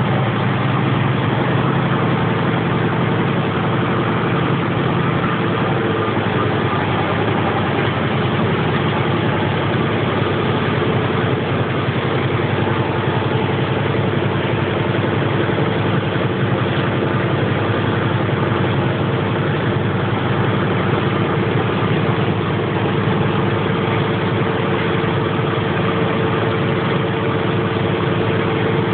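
A small wooden boat's engine running steadily while under way, heard from on board as a constant drone with a faint steady hum in it.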